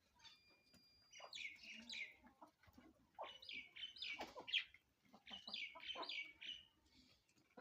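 Desi hens calling in three short bouts of quick, high-pitched clucks and squawks.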